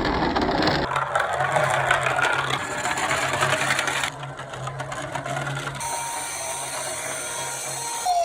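Toy minicars rolling down a slope: a rough rattle of rapid clicks from small wheels, over a low steady hum, that drops in level about four seconds in.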